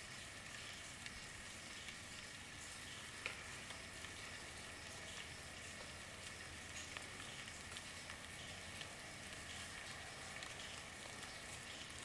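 Recorded steady rainfall: an even hiss of rain with many small drop ticks scattered through it.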